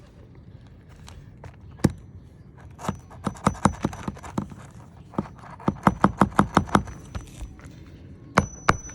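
Hammer driving roofing nails through a replacement asphalt shingle: three runs of quick hammer blows, one nail driven home per run, the strikes ringing faintly.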